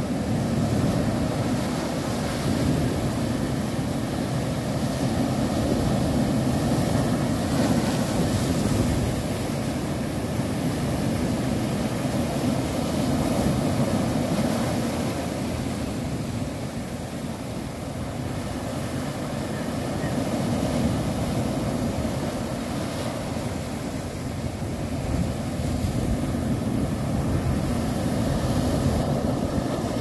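Sea waves surging and breaking over a rocky shore, a continuous wash of surf that swells and eases every several seconds.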